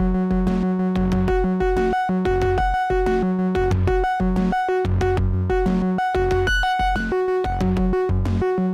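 Moog DFAM and Moog Grandmother analog synthesizers playing live: a fast repeating sequence of short pitched notes with sharp gaps between them. Underneath is a bass line that holds one note for about the first second, then breaks into short stepped notes.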